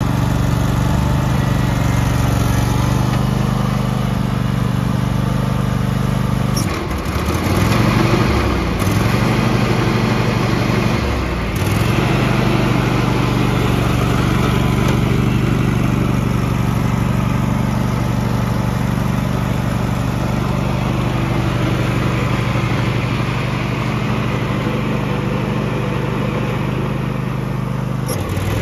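Husqvarna riding lawn tractor's engine running steadily. Its speed dips and picks back up briefly twice, about seven seconds in and again about eleven seconds in.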